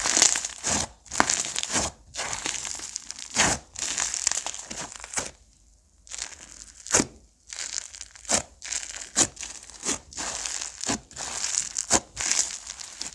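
Slime being squished, pressed and stretched by hand, giving a run of irregular crackles and sharp pops. There is a brief pause a little before halfway.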